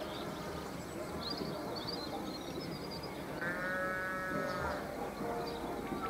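A single drawn-out, bleat-like animal call lasting just over a second, about halfway through, with scattered short high chirps from birds.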